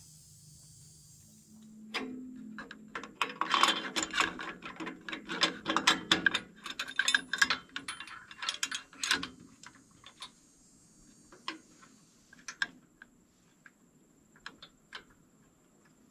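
Clicking and rattling of a steel bracket and bolt being fitted to a sawmill's steel frame: a dense, irregular run of sharp metallic clicks for several seconds, starting about two seconds in, then a few scattered clicks.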